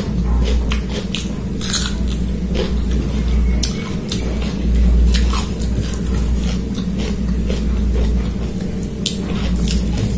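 Close-up eating sounds: chewing and mouth smacks on a mouthful of rice and chicken curry, with wet squishes as fingers mix rice and curry on the plate. A steady low hum runs underneath.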